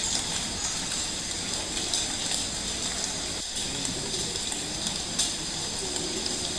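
Steady rushing background noise, like running water, with no clear events in it.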